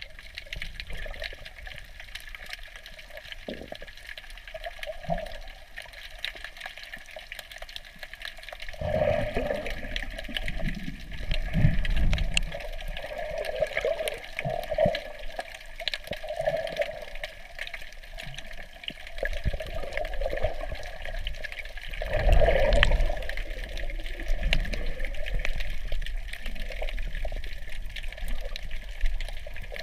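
Muffled rushing and gurgling of water heard underwater through a GoPro Hero 4 Silver's waterproof housing, swelling louder a few times.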